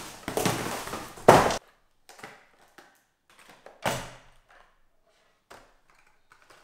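Cardboard box and plastic bubble wrap rustling as the box is pulled away and set aside, stopping abruptly about one and a half seconds in. Then light taps and knocks of plastic fishing-line spool boxes being picked up and set down on a wooden table, the loudest about four seconds in.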